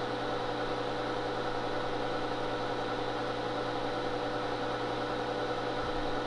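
Steady hum of powered bench equipment running, several steady tones over a low drone, unchanging throughout.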